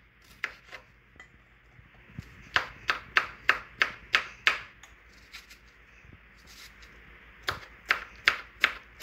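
Kitchen knife chopping okra on a wooden cutting board: runs of sharp taps, about three a second, with a pause of a couple of seconds in the middle.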